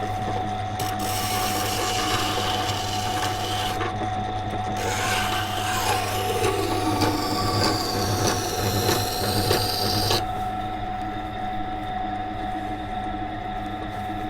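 Water grinder's motor running with a steady hum while a carbon-steel knife blade is ground against the wet stone wheel, a gritty scraping as the secondary bevel is worked up to the tip. The scraping breaks off briefly about four seconds in and stops about ten seconds in, leaving only the motor hum.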